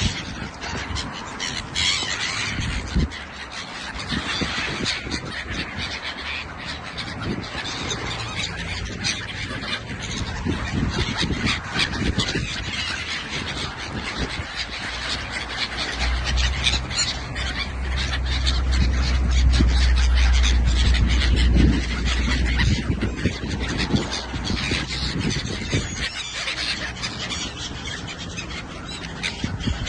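Many gulls calling at once in a dense, overlapping chorus. A deep rumble swells in about halfway through and fades several seconds later.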